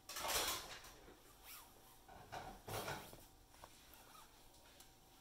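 Baby's bare feet and body scuffing and rubbing against vinyl-covered foam play mats: a louder scrape just after the start, then a few short, fainter scuffs.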